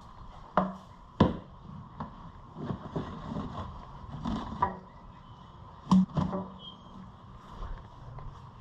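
Plastic snorkel pipe and hose clamps being handled and pushed together: a few sharp clicks and knocks, the loudest about a second in and again near six seconds.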